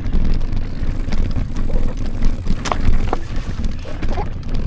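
Mountain bike riding over a rocky, bumpy track: a steady low rumble and wind buffeting on the microphone, with frequent sharp clicks and knocks as the bike jolts over stones.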